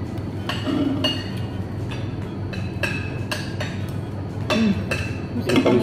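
Metal spoons and forks clinking against ceramic bowls and plates during a meal: several sharp, ringing clinks spread through, over a steady low room background.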